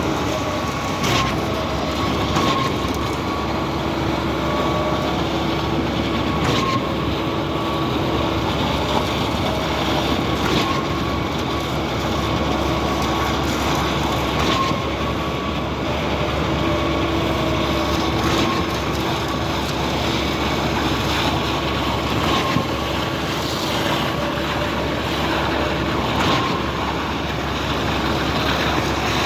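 Cifa K42L truck-mounted concrete pump running under load, a steady engine and hydraulic drone with a sharp knock about every four seconds as the pump strokes change over.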